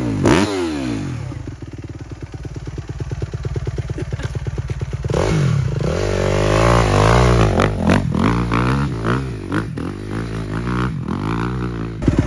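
Dirt bike engine dropping back from a rev to a low, rapid-pulsing idle, then blipped up and down repeatedly from about halfway through.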